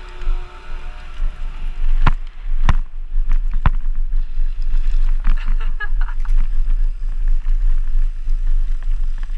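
Wind buffeting a helmet-mounted camera's microphone as a downhill mountain bike rolls down a start ramp onto a gravel track, with tyre noise and rattle. A few sharp knocks come from the bike about two to four seconds in.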